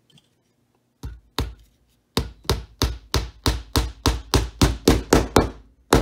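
Small hammer driving a wire brad into wood: two single taps to start it, then a steady run of hammer strikes, about four a second.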